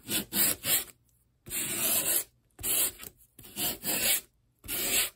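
Small piece of sandpaper rubbed by hand along the edge of a ditch cut into pink foam board, in about six dry scratchy strokes of varying length with brief pauses, rounding the cut edge off.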